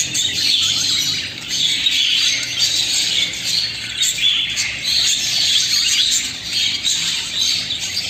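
Caged budgerigars chattering, a constant overlapping mix of chirps and warbles with no pauses.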